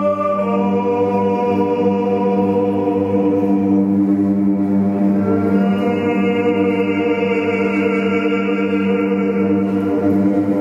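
Sustained, chant-like male singing over a steady low drone. The long held notes shift slowly, with a brighter, higher note coming in about five seconds in.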